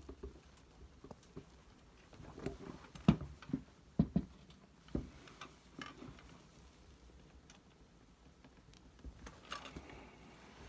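Scattered clicks and knocks of a steel wrench and an air rifle being handled on a wooden tabletop, as the wrench is fitted and levered on the rifle's valve to break it loose. A few sharper knocks come about three to five seconds in and again at the end.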